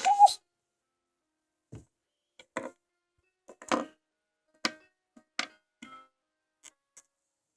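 Scattered light clicks and taps, about eight spaced irregularly with silence between, from small plastic toy figures being handled and knocked against a surface.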